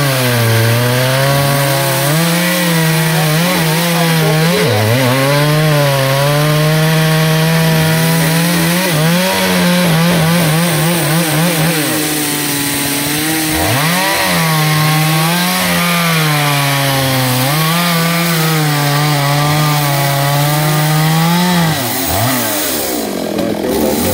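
Two-stroke chainsaw running at high revs while cutting wood; its engine note sags again and again as the chain bites into the wood and climbs back as it clears the cut. Near the end the throttle eases off and the pitch drops.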